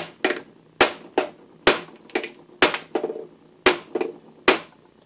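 Mallet blows on the end of a Logan lathe spindle, about two a second, each a sharp knock with a short metallic ring, driving the spindle out through its headstock bearings. The blows stop about half a second before the end.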